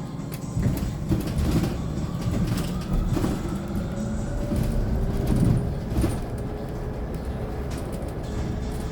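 Interior of a Hyundai Elec City 2 electric bus on the move: low road and body rumble with knocks and rattles, and a faint electric-motor whine that slowly rises in pitch as the bus gathers speed.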